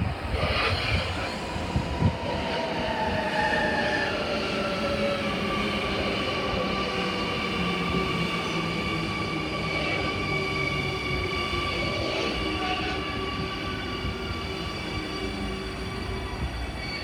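Amsterdam Metro Line 52 train pulling into a station: the electric drive's whine falls in pitch over the first few seconds as it brakes, then steady high squealing tones ring out over the constant rumble of wheels on rail. A few sharp clicks come in the first couple of seconds.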